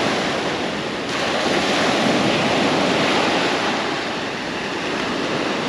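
Ocean surf washing up a sandy beach, the wash of a breaking wave swelling about a second in and easing off near the end, with wind on the microphone.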